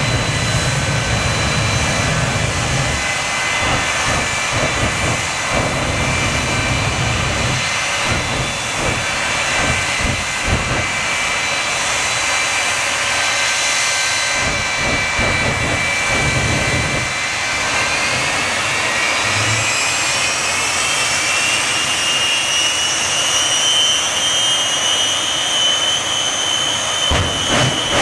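Shockwave jet truck's three jet engines (Westinghouse J34s) running at the line: a loud, steady rushing noise with a high turbine whine. The whine rises in pitch about eighteen seconds in and then holds, the engines speeding up.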